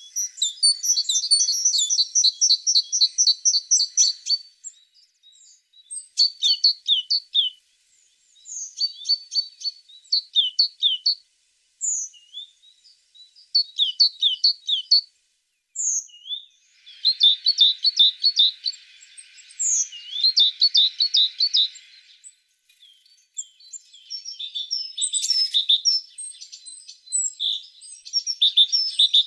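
A tit singing: short phrases of fast, high-pitched trilled notes repeated over and over with brief pauses, mixed with scattered single chirps.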